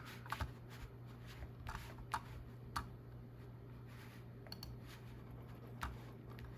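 Faint, irregular clicks and ticks, about a dozen scattered through, over a steady low hum.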